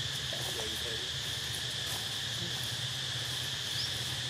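A steady, high-pitched chorus of insects droning without a break, over a low steady hum.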